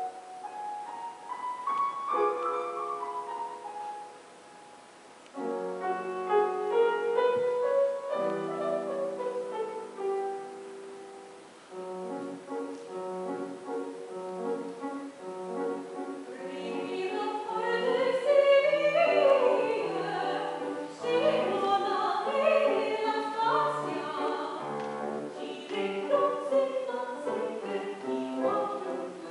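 A grand piano plays alone at first, with short breaks near four and eleven seconds in. About sixteen seconds in, a woman's classically trained voice enters with a wide vibrato, singing over the piano accompaniment.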